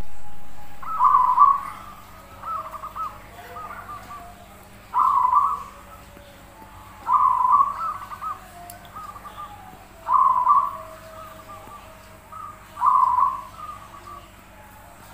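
Zebra dove (perkutut) singing its rolling coo: five loud phrases spaced two to three seconds apart, each trailed by a few softer, quicker coo notes.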